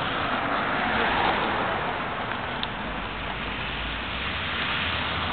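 Steady street traffic noise, cars going by on the road. A single short tick sounds about halfway through.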